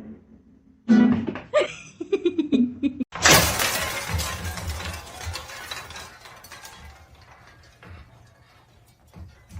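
A sudden crash, like something breaking or shattering, about three seconds in, its clatter dying away over the next few seconds. It follows a short pitched call that bends up and down.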